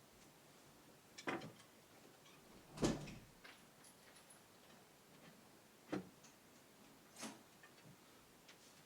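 A few scattered sharp knocks and clicks against a quiet background, about four louder ones spread out over several seconds, the loudest a little before the middle.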